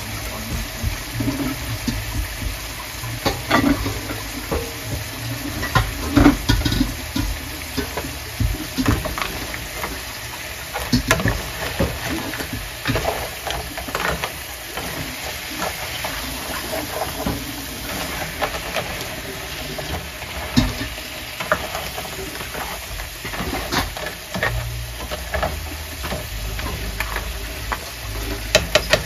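Halved blue crabs being stirred in a pot: a utensil knocks against the pot and the shells clatter irregularly, over a steady sizzle.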